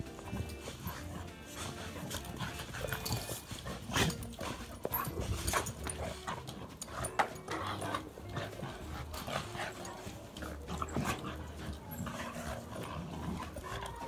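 Dogs play-fighting, their sharp dog noises standing out about four, five and a half and seven seconds in, over background music with a steady bass line.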